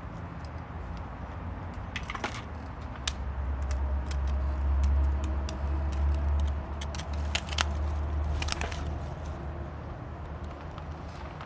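Feather sticks burning in a small wood fire, crackling with scattered sharp snaps over a low rumble that swells around the middle.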